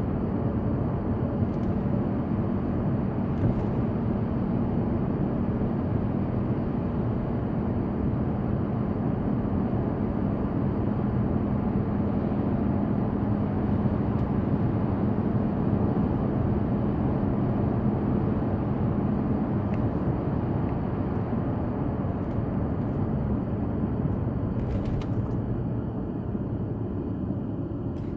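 Steady low rumble of car cabin noise in an Audi A6 C6, with a faint steady hum that fades out about two-thirds of the way through.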